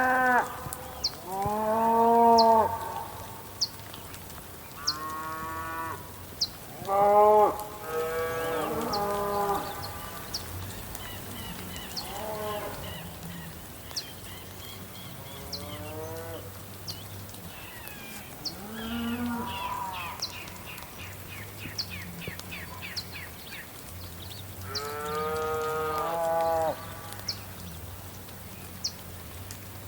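Cattle mooing over and over, around ten long calls of differing pitch, the loudest near the start. Between them birds chirp in quick runs, over soft steady rain with scattered sharp drip ticks.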